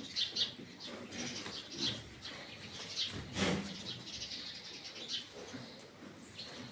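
Faint chirping of small birds, short high calls repeating every half second or so, with a somewhat louder lower sound about three and a half seconds in.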